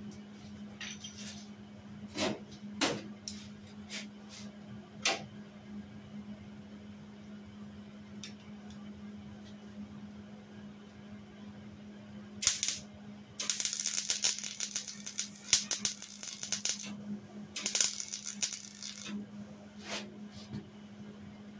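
MIG welder arcing on the steel frame of a Jeep CJ7: a short crackling burst about twelve seconds in, then two longer runs of crackling of a few seconds each. A few sharp clicks come before the welding, over a steady low hum.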